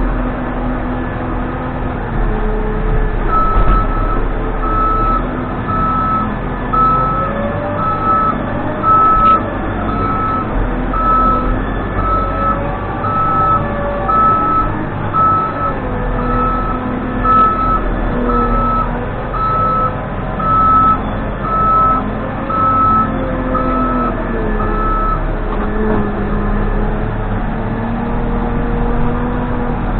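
Case 580N backhoe loader's diesel engine running, its pitch rising and falling as the machine works, with its reversing alarm beeping steadily from a few seconds in until a few seconds before the end.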